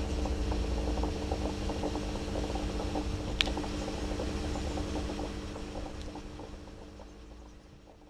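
A steady low machine hum with a few held tones over a low rumble, fading away over the last three seconds, with a single sharp click about three and a half seconds in.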